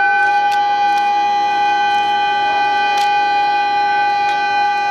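A diesel railcar's air horn sounding one long, steady blast as the train departs, with a few sharp clicks over it.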